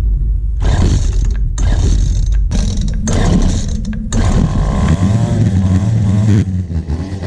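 Gas string trimmer's small engine being pull-started, running in broken bursts for about four seconds, then catching and running steadily with a brief rise and fall in pitch. It fires on a carbon-fouled spark plug that has just been cleaned with a wire brush.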